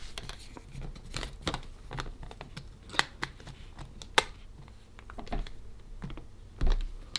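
Keys on a Seiko ER2000 electronic thesaurus being pressed: a run of irregular small plastic clicks, with two sharper clicks about three and four seconds in.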